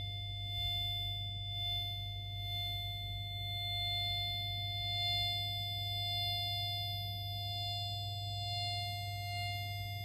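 Lascells microwave receiver's audio output sounding a steady tone of fixed pitch. Its loudness swells and fades several times as the receiver moves through the standing wave, louder at the antinodes (maxima) and quieter at the nodes (minima).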